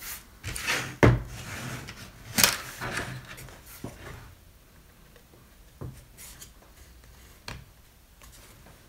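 Wooden beehive frame being handled and set on a table: a sharp wooden knock about a second in and another a second or so later, with rubbing and scraping of wood between them, then a few light taps.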